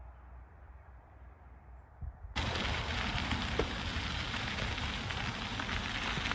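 Steady rushing noise of wind on the microphone and bicycle tyres rolling over a gravel trail, cutting in abruptly a little over two seconds in; before that only a faint low rumble.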